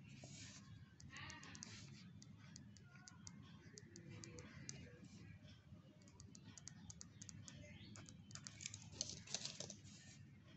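Pen drawing short strokes on paper: quick, light taps and scratches as tick marks are drawn, coming in clusters and thickest near the end, over a faint low hum.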